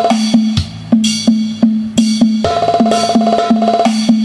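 Hadroh-style remix music played loud through a 3-way speaker system with a 12-inch woofer, driven by a 140-watt driver amplifier, as a sound check. A fast, even drum beat runs under a short melody phrase that repeats, with deep bass hits.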